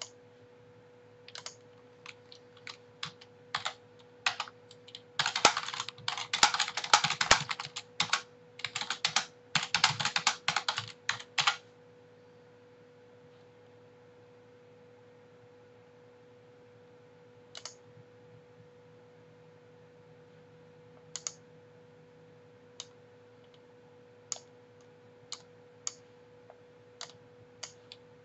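Computer keyboard typing: a few scattered keystrokes, then a fast unbroken run of typing for about six seconds that stops abruptly, followed after a pause by a dozen or so single clicks spaced out to the end. A faint steady hum sits underneath throughout.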